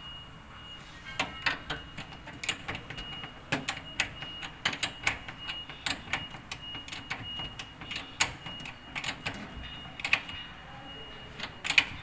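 Metal spanner clicking and clinking irregularly against a hex bolt and the washing machine's sheet-metal cabinet as the bolt is worked, in quick sharp taps, the loudest just before the end.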